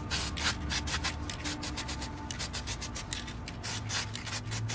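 Gloved hands rubbing and turning an oil-soaked foam dirt-bike air filter, a fast irregular run of scratchy rubbing strokes.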